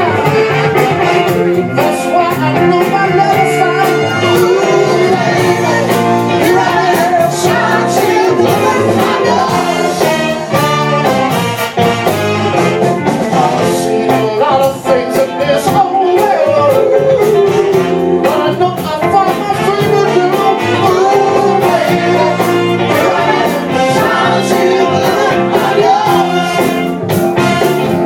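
Live band playing a Motown song, with a lead vocal over a steady beat.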